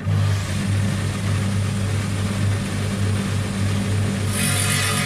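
Electric wet saw starts up suddenly with a steady motor hum and blade whine. At about four seconds a harsher, higher hiss joins in as the blade begins cutting into a fossil-bearing stone.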